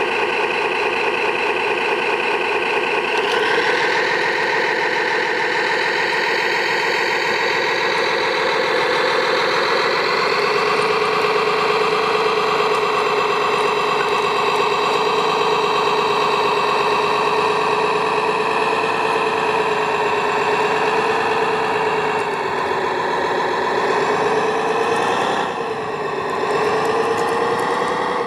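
Engine sound of a remote-controlled Liebherr 741 model bulldozer running steadily. Its pitch steps up about three seconds in and again around ten seconds, and dips briefly near the end.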